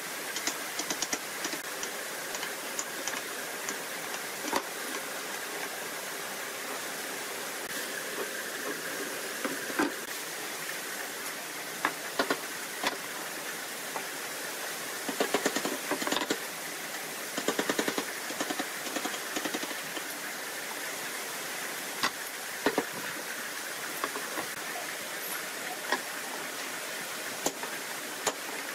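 Pencil and metal square at work on pine boards: scattered light taps and clicks, and two short runs of quick scratchy strokes a little past halfway, over a steady hiss.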